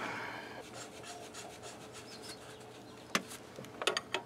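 Metal scraping and rubbing as threads on an engine fitting are cleaned, with a short scrape at the start. Near the end come a few sharp metallic clicks as a wrench goes onto the part.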